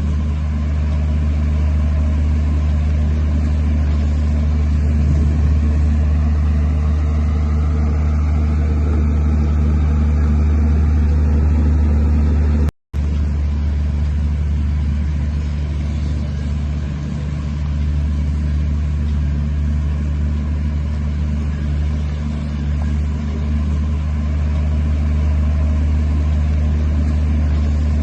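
Heavy diesel earthmoving machinery running steadily under load, a deep continuous engine drone, cut off for a split second about thirteen seconds in.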